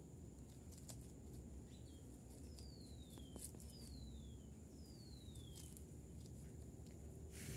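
Near silence with a faint outdoor background; three short whistles falling in pitch sound around the middle, like a distant bird calling, with a brief hiss near the end.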